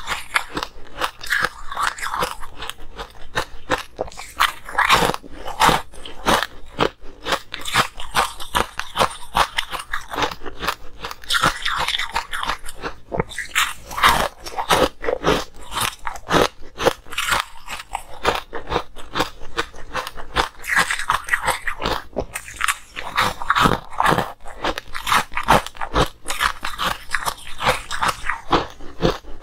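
Coloured ice cubes being bitten and chewed: crunching made of many sharp, irregular cracks and crackles in quick succession.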